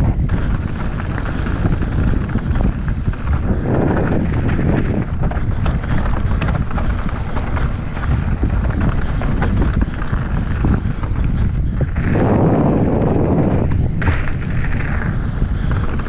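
Mountain bike descending a loose dirt and gravel trail: tyres crunching over stones and the bike rattling with many small knocks, under heavy wind rumble on the microphone. The rough noise swells louder about four seconds in and again for a couple of seconds about twelve seconds in.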